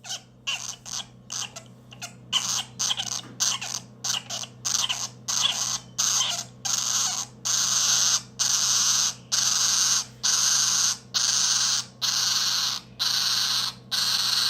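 Galah (rose-breasted cockatoo) chick, 11 days old, giving hoarse, rasping begging calls. They start as short irregular squawks and settle into a steady run of longer calls about once a second.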